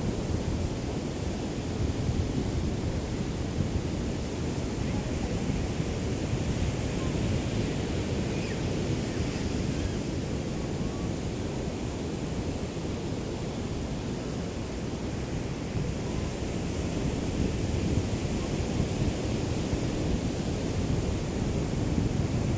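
Small waves of a calm sea lapping on the shore, a steady wash of surf with no big breakers. A light breeze rumbles on the microphone.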